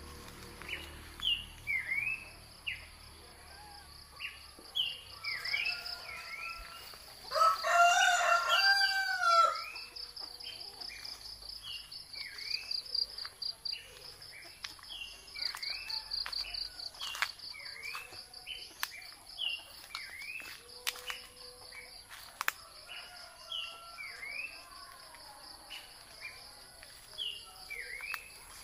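A rooster crows once, a long call of about two seconds about a quarter of the way in. Short repeated bird chirps and a steady pulsing insect trill continue throughout.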